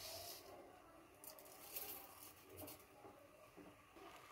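Faint, soft sounds of a metal ladle moving through a thick milk-and-paneer mixture in a metal kadhai, with a few light scrapes and ticks, as freshly added sugar is stirred in.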